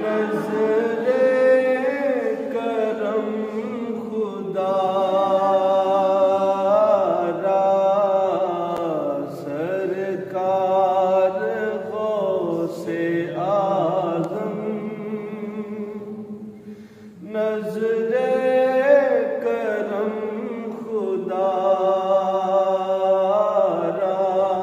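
Men's voices chanting an unaccompanied devotional recitation, with long drawn-out sung lines and a brief pause about two-thirds of the way through.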